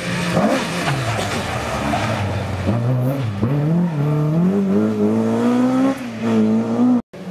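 Rally car engine, pitch falling as it slows for a corner, then accelerating hard away with the pitch climbing through the revs and dropping at an upshift. The sound cuts off abruptly near the end.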